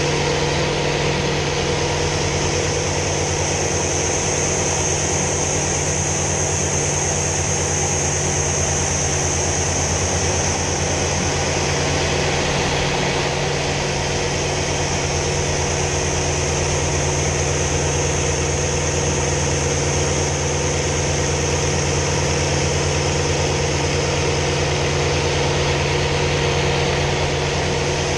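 Hawker Sea Fury T20's Bristol Centaurus 18-cylinder sleeve-valve radial engine running steadily under power in flight, heard from inside the cockpit.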